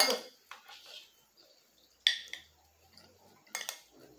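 Metal spoon clinking and scraping against a ceramic plate while eating. There is a small clink about half a second in, a louder pair of clinks about two seconds in and another pair near the end.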